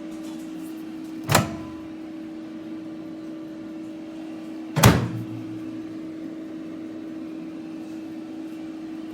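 Nostalgia Retro 800-watt countertop microwave oven running with a steady hum. Two sharp knocks about three and a half seconds apart cut across it, the second the louder.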